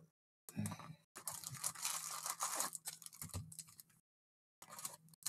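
A cardboard trading-card box being torn open and handled: scratchy tearing and rustling of cardboard and packs in several spells, with a short pause about four seconds in.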